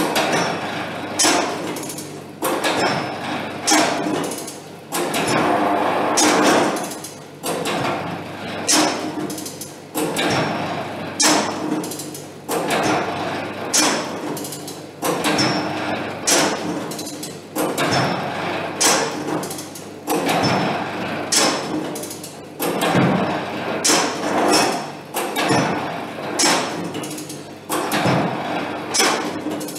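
Automatic CBR soil compactor's 2.5 kg rammer being lifted and dropped onto granular soil in a steel mould, a loud thud about every 1.2 seconds, with a faint steady hum beneath. This is the first layer of the sample being compacted, 67 blows per layer.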